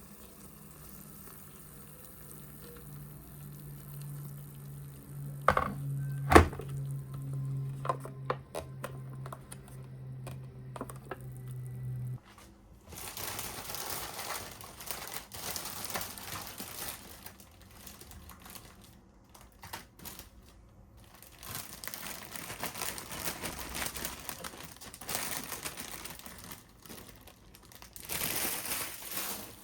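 Household handling sounds: a steady low hum that stops about twelve seconds in, with two sharp knocks around the six-second mark, followed by irregular crinkling and rustling, as of packaging or paper being handled.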